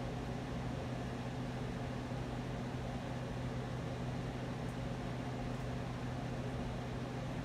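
Steady hiss with a low, even hum underneath, unchanging throughout.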